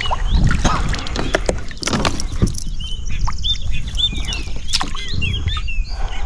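Knocks and rustling of handling in a small boat, with a bird singing a quick run of short, arching chirps through the second half.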